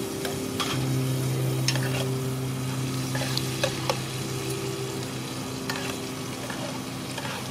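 Snails and chili frying in a pan, sizzling, while a metal spatula and spoon stir them, clinking and scraping against the pan now and then.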